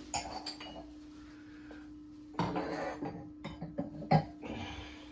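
Scattered light clanks and knocks of a microwave oven being handled and shifted into place against its wall mounting plate, busiest about two and a half seconds in and again near four seconds, over a faint steady hum.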